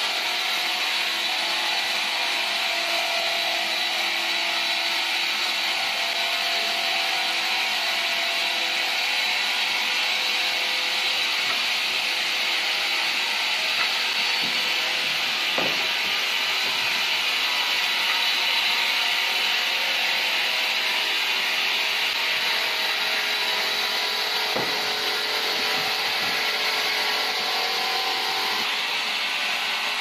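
Horizontal band sawmill blade cutting lengthwise through a large squared log: a steady, high-pitched sawing hiss, with a faint knock about halfway through.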